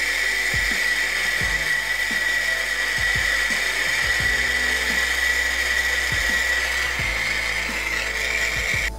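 Handheld gas blowtorch burning with a steady hiss and a high whistle in it, heating a copper pipe elbow joint for soldering; the flame shuts off suddenly near the end.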